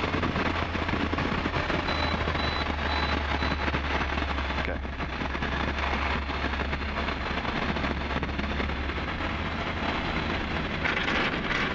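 Cockpit noise of a Pioneer 300 on its landing roll: the four-cylinder Rotax engine at low power, with the wheels rumbling over the runway. The engine has lost cylinders 2 and 4 to a blocked main jet in the left carburettor. A steady low hum drops away about nine seconds in.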